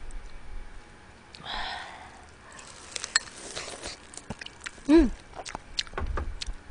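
Close-up eating sounds of steamed blue crab: wet sucking, chewing and a run of small sharp clicks and cracks of shell, with a breath early on and a short voiced sound about five seconds in.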